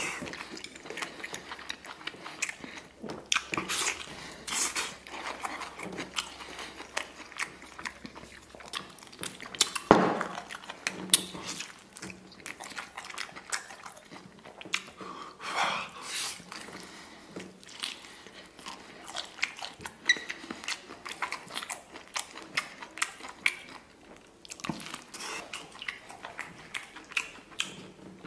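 Close-miked chewing and biting of soft stewed beef rib meat, a run of wet mouth sounds and small clicks, with one louder sharp sound about ten seconds in.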